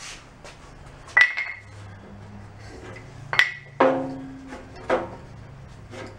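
Metal clanks and clinks from hands working at a small engine's front starter pulley. The two loudest are sharp strikes with a brief high ring, about two seconds apart, and a few softer knocks follow, over a steady low hum.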